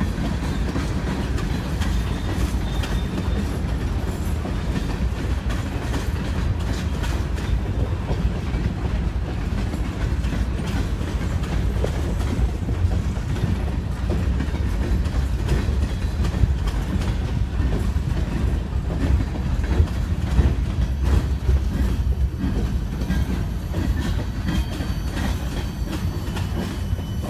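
Freight train cars rolling steadily past: a continuous heavy low rumble with clacking as the wheels cross rail joints. A faint, thin wheel squeal comes in near the end.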